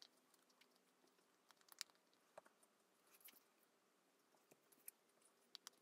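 Near silence, with faint scattered clicks and taps as a glue stick and small paper circles are handled and pressed onto a card on a tabletop.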